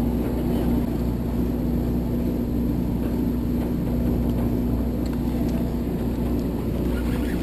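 Steady low hum of the party boat's engines running, an even drone with no change in pitch.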